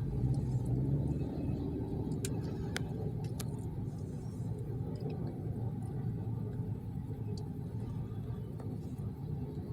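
Freight train passing, heard from inside a parked car as a steady low rumble, with a few faint clicks a couple of seconds in.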